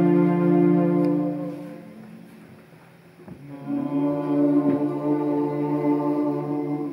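Small mixed vocal ensemble singing long held chords. The first chord fades away over the first two seconds. After a short lull, a second chord comes in about three and a half seconds in and is held until it stops near the end.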